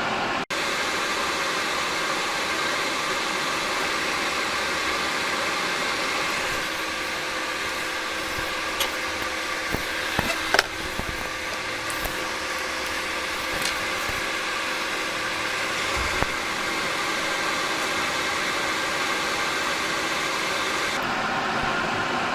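Steady fan-like hiss with faint steady hum tones, and a few small sharp clicks around the middle.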